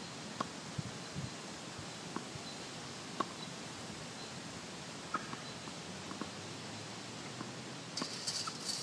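Steady faint outdoor hiss with a few faint knocks of tennis balls bouncing and being hit. Near the end comes a cluster of sharp clicks and a louder crack as a racket strikes a tennis ball.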